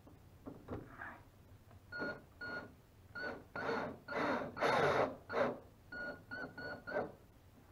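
Cordless drill driving a screw into a plywood boat seat, its motor whining in a series of short trigger bursts that come quicker near the end.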